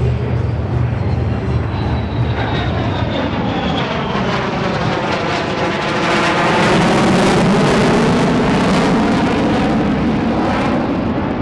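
United States Air Force F-35A Lightning II fighter jet, single afterburning turbofan, making a loud pass. A high whine drops in pitch about two seconds in, and the engine noise is loudest about seven seconds in before easing.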